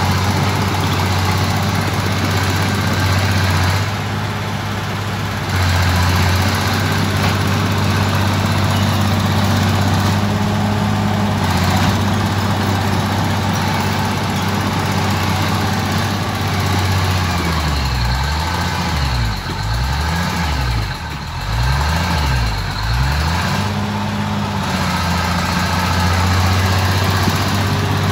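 Crawler bulldozer's diesel engine running hard as the machine works, close by. Past the middle, its pitch swings down and back up four or five times in quick succession before it settles again.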